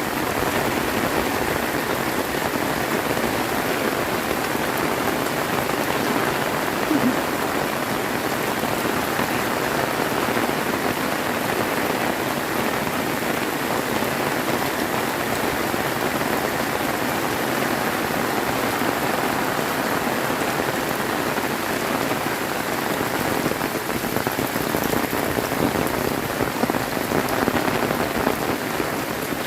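Heavy rain pouring steadily, an even dense hiss of drops on surfaces.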